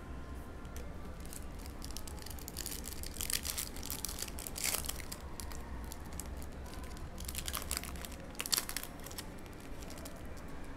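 Foil trading-card pack being torn open and crinkled by hand, crackling in two bursts, about three seconds in and again near eight seconds, over a low steady hum.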